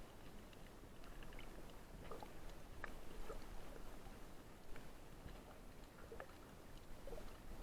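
Faint water noise with scattered small clicks and crackles over a low rumble.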